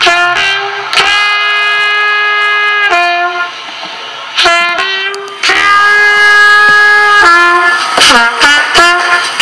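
Trumpet playing a slow melody of long held notes, then a run of quicker, shorter notes near the end.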